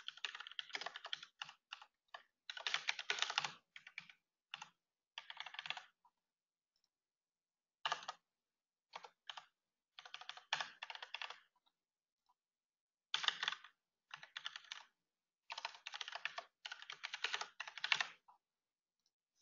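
Computer keyboard typing in short bursts, separated by pauses of a second or two, as text is entered field by field into a form.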